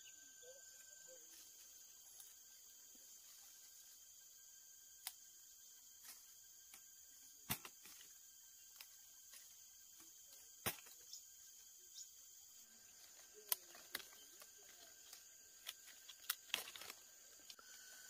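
Near silence with a faint steady high hiss and whine, broken by a dozen or so sharp, separate clicks, louder around the middle and near the end.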